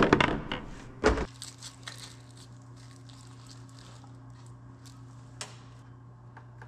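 Hands fitting a new LED work light into a skid steer's cab light mount: rustling and clicking of plastic and rubber, a sharp knock about a second in, then faint scattered clicks over a steady low hum.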